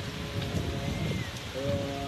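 Strong wind buffeting the microphone: an uneven low rumble of gusts. A faint short whistle falls in pitch about a second in.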